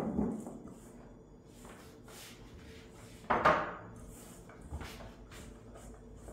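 Kitchen handling sounds: a spatula folding cookie dough in a stainless steel bowl, with a sharp knock at the start and a louder clatter that rings briefly about three and a half seconds in.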